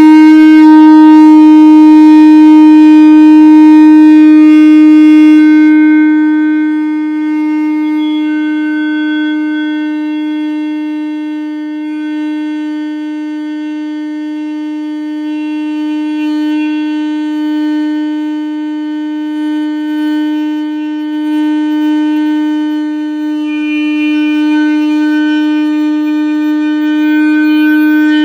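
Shofar sounding one long, unbroken low note with many overtones. It is loudest for the first few seconds, softens about six seconds in, and swells again near the end as a higher, brighter overtone comes in.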